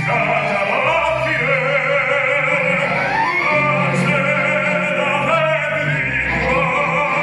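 Operatic singing with vibrato, over a sustained low accompaniment, the voice gliding between held notes.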